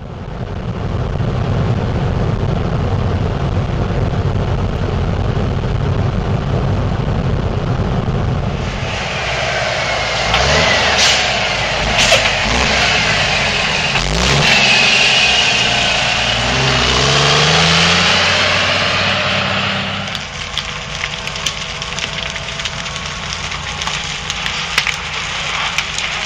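A vehicle driving, with a steady low rumble. From about a third of the way in, a fire truck passes close with its engine running and sweeping high tones. Near the end, this gives way to a quieter hiss with sharp snaps and crackles from a burning building.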